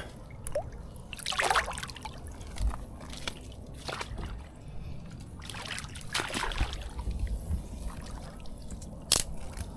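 Water sloshing and trickling in a few irregular splashes, with a sharp click about nine seconds in.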